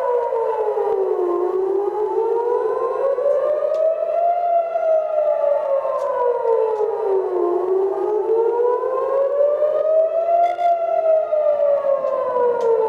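Civil defence siren wailing, its pitch sliding slowly down and up again about every six seconds; this is the rocket-warning siren that sounds while rockets are inbound.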